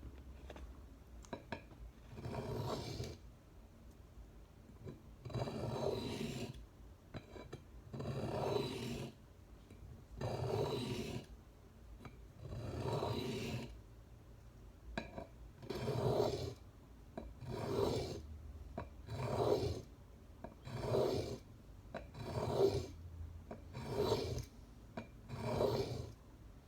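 Knife blade being drawn across a sharpening stone, about a dozen separate rasping strokes, slow at first and quicker in the second half. The strokes work on a burr already raised on both sides of the Swiss Army knife's blade.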